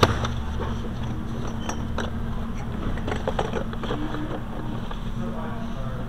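Cardboard product box being handled and slid off a metal store shelf: a sharp knock at the start, then scattered light knocks and scrapes, over a steady low hum.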